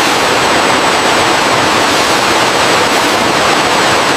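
Robotic welding arc hissing loudly and steadily on a car body shell's roof seam, with a thin high whine over it.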